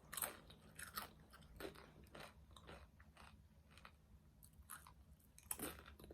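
A person chewing crunchy food close to the microphone: a string of irregular crunches, with a louder one near the end.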